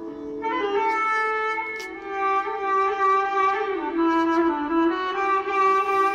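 Background music: a melody of long, held notes over a low sustained drone.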